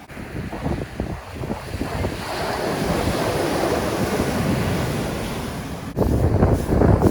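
Heavy surf breaking on the shore: a broad wash of a wave swells about two seconds in and slowly fades. Wind buffets the microphone throughout, and it becomes loudest after an abrupt break about six seconds in.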